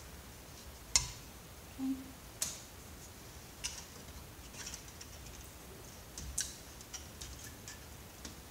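Scattered light clicks and taps, the sharpest about a second in and a run of small ones near the end: tools and parts of a CRT computer monitor being handled.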